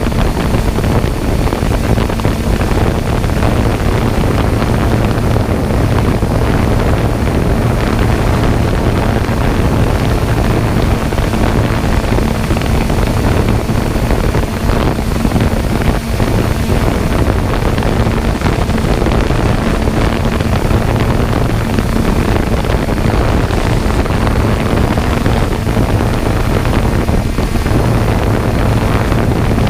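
A steady low motor or engine hum under continuous wind noise on the microphone.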